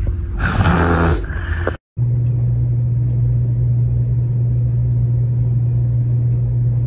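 A brief burst of noise, then after a short break a steady, loud low hum with a rumble beneath it that holds unchanged to the end.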